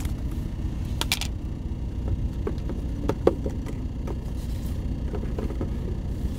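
Steady low rumble of an idling semi-truck heard inside the cab. About a second in come a few sharp clicks as the lid comes off a cocoa container, then smaller knocks and rattles as spice jars are moved in a plastic bin.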